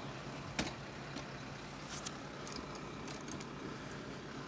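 Deck hatch on a yacht being unlatched and lifted open: a sharp click a little over half a second in and a shorter, lighter click about two seconds in, over a steady low mechanical hum.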